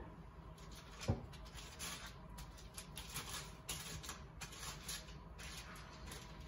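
Foil wrapper of a block of softened cream cheese crinkling as it is peeled open by hand, a run of quick crackly rustles, with a soft knock about a second in.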